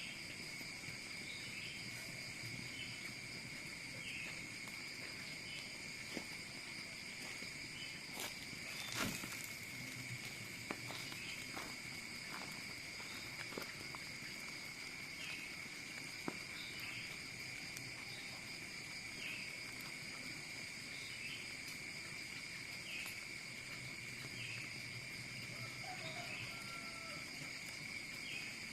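Steady insect chorus of crickets trilling without a break, with a short chirp repeating every second or two. A few sharp clicks stand out about a third of the way in, the loudest near nine seconds.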